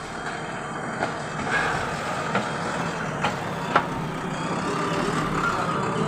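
A JCB backhoe loader's diesel engine running steadily while the machine works its front bucket in soil. Several sharp knocks cut through it, the loudest a little under four seconds in.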